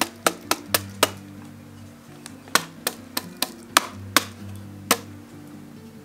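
Metal box grater knocking against the rim of a plastic mixing bowl to shake off grated frozen fat: five quick sharp knocks about four a second, then about seven more spaced unevenly, over background music.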